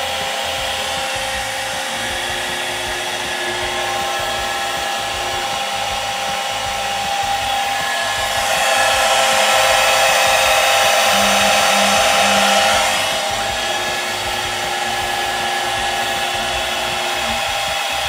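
CNC router spindle spinning free, running a drilling program in the air above the workpiece without cutting. It makes a steady whine of several tones, and the gantry moves between hole positions. The sound grows louder and rougher from about eight to thirteen seconds in, then settles back.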